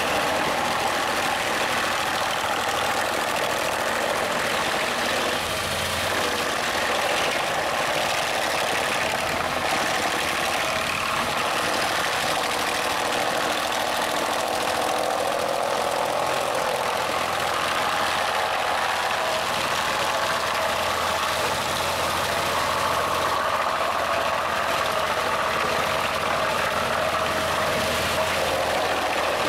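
Home-made wood chipper running steadily at working speed, chipping slabs and logs fed in by a crane grapple, over the run of engines.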